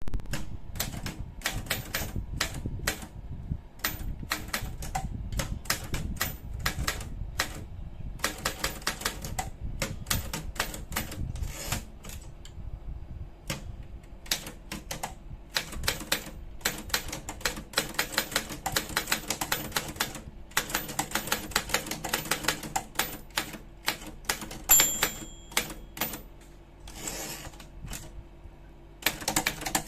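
Remington Monarch typewriter being typed on: rapid runs of sharp key strikes with short pauses between bursts. About three-quarters of the way through there is a single ringing ding.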